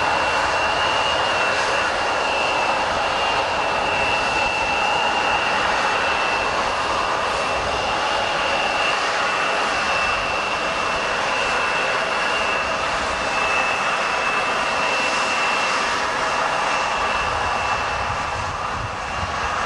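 Jet airliner engines running steadily: a high, constant whine over a broad rush of engine noise.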